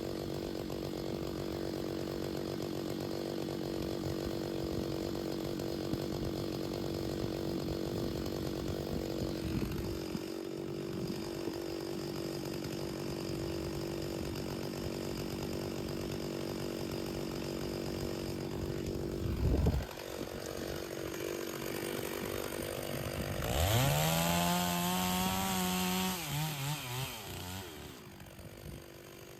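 Two-stroke chainsaw running steadily, with a sharp knock a little before the middle; then it revs up quickly to a high whine for about three seconds and drops back off near the end.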